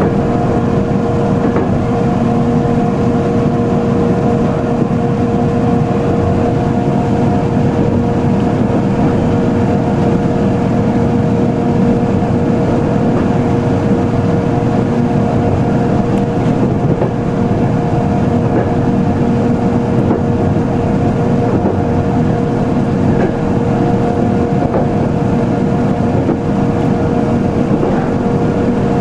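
Electric train running at a steady speed, heard from the driving cab: a continuous rumble of wheels on rail with a constant hum of the traction equipment.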